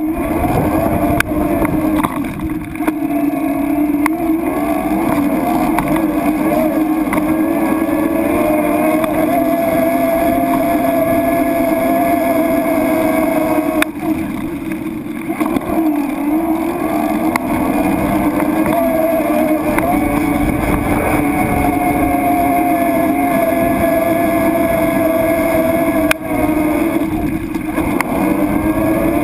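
Motorboat engine running steadily under way; its note dips briefly about halfway through and again near the end, then climbs.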